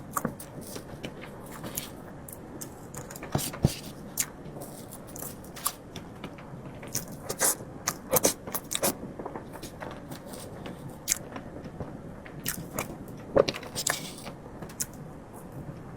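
Close-miked eating sounds of soft matcha mille crepe cake being chewed: irregular wet mouth clicks and smacks, thickest about halfway through and again near the end.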